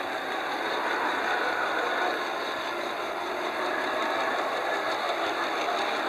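Scratchbuilt gauge-one model tram running along the track, its two small battery-driven electric motors and gearing whirring steadily with the wheels rolling on the rails.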